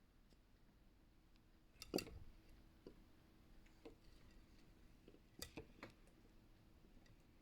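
Near silence with a few faint, short clicks and knocks: a sharper one about two seconds in, then scattered taps and a quick cluster of three a little past the middle.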